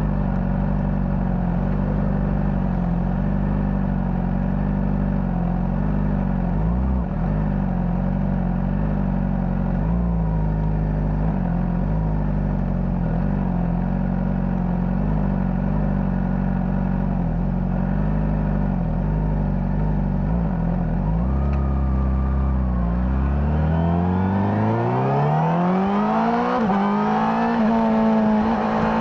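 Honda CBR600RR's inline-four engine through its stock exhaust, running at low, steady revs. About 22 seconds in it accelerates with rising revs, dips briefly near the end and climbs again.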